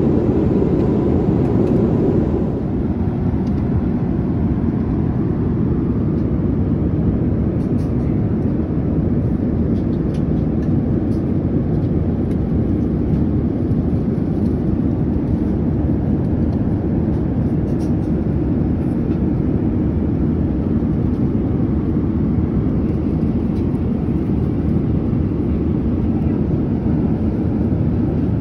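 Steady cabin noise of a Boeing 787-10 airliner in cruise: an even, low rush of airflow and engine noise, dropping slightly in level about two and a half seconds in.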